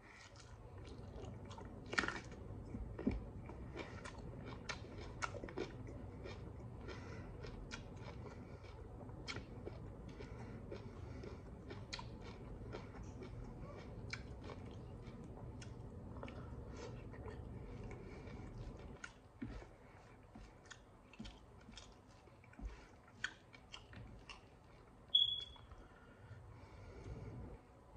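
Close-up mouth sounds of a person chewing rice and fish eaten by hand: many small wet clicks and smacks over a low steady hum that drops away about two-thirds through. A brief high-pitched chirp near the end is the loudest single sound.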